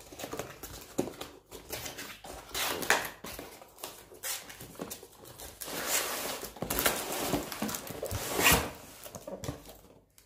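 Cardboard packaging being handled: a printed lamp box opened and the brown inner carton slid out of it, with irregular scraping and rustling of cardboard and a few light knocks.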